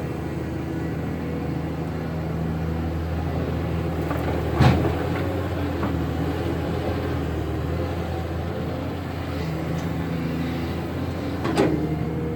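Cat 320 hydraulic excavator's diesel engine running steadily under load, its pitch shifting a little as the hydraulics work, with a sharp knock about four and a half seconds in and another near the end.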